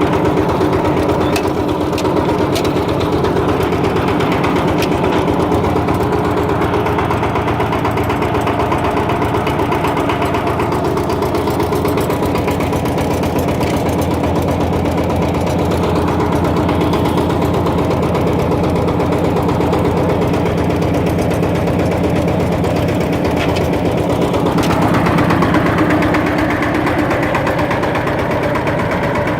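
Daedong power tiller's single-cylinder diesel engine running steadily with an even thudding pulse, getting briefly a little louder late on.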